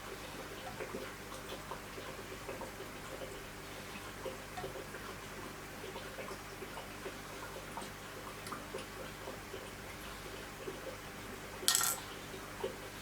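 Light, irregular metallic clicks and ticks from working a knife in a guided sharpening system, with one brief, harsher scrape near the end.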